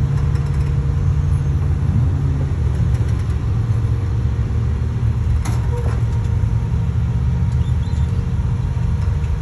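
Off-road vehicle's engine running steadily at low speed, a continuous low rumble, with a single sharp knock about five and a half seconds in.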